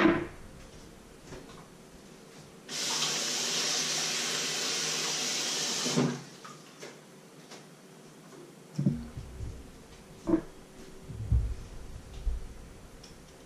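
Kitchen tap running into a sink for about three seconds, a steady rush of water that cuts off sharply. A sharp knock comes at the very start, and a few dull knocks and thuds follow near the end.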